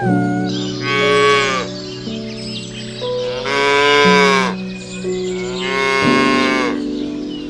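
Cow mooing three times, each a long call that rises and falls back in pitch, over background music with held notes.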